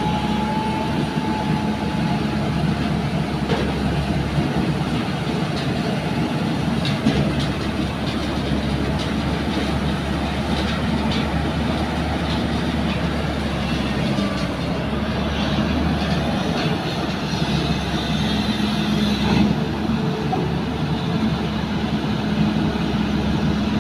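JCB crawler excavator's diesel engine running steadily under load as it digs and swings, with scattered knocks and scrapes from the bucket working sand.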